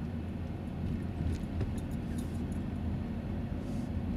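Steady low rumble of a car's engine and tyres, heard from inside the cabin while it drives along.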